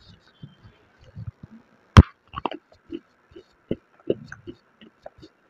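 Crunching of white khadi edible clay: one loud, sharp crack as a chunk is bitten about two seconds in, followed by a string of smaller irregular crackles and dull thuds as it is chewed.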